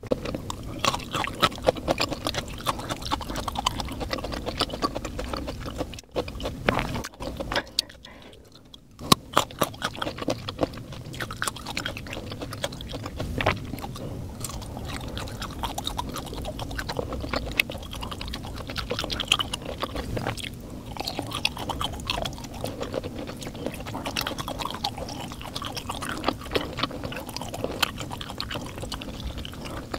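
Close-miked chewing and biting of food, a dense run of crisp, irregular mouth clicks and crunches, with a short lull about eight seconds in.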